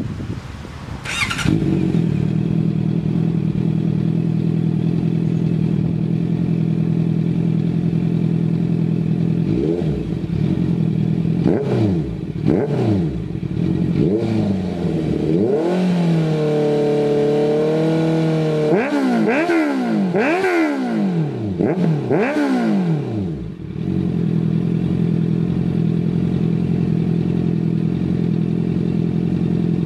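Honda CBR650F inline-four through an aftermarket titanium exhaust, started about a second in and settling straight into a steady idle. From about ten seconds in it is revved in a series of quick throttle blips, one held briefly at a higher steady rev, before dropping back to idle for the last few seconds.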